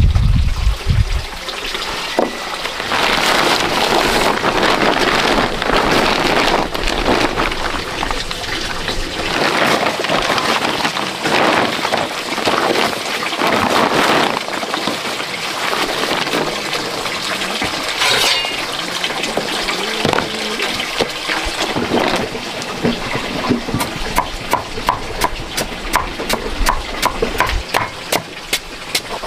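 Water splashing and trickling with the rustle of hands at work, then, near the end, a steady run of quick knocks, about four a second.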